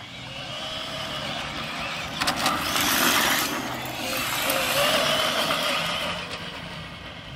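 Arrma Felony 6S radio-controlled car's brushless electric motor whining as it is driven hard across asphalt, with tyre noise. The sound swells twice, about two and five seconds in, with a rising whine in the second swell.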